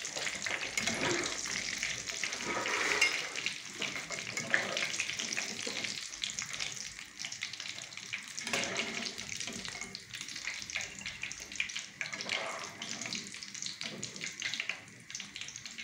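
Chebakia dough pieces deep-frying in a pan of hot oil: a steady crackling sizzle.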